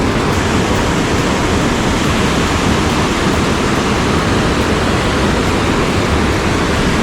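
Loud, steady rush of a waterfall pouring down a cliff face.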